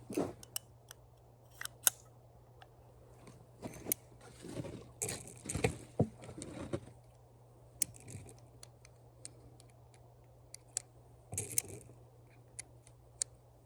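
Scattered sharp clicks and light taps, irregular, over a faint steady hum, with a few brief rustles.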